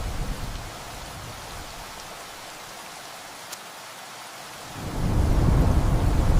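Steady rain with rolling thunder. A low thunder rumble dies away in the first second, leaving the rain alone. About five seconds in, a new roll of thunder swells up loud.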